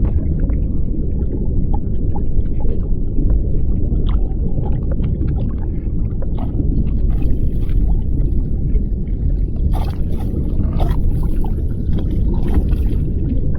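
Underwater ambience picked up by an action camera in its waterproof case: a steady low rumble of moving water, with scattered small clicks and crackles throughout and a cluster of sharper clicks about ten seconds in.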